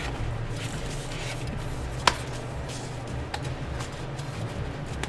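Hands handling and turning a small cardboard box of PC fans, with light rustling and a sharp tap about two seconds in and fainter ticks later, over a steady low hum.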